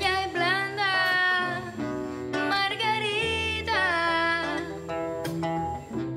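A woman singing two long phrases with sliding, wavering pitch, backed by acoustic guitar and band in a live performance.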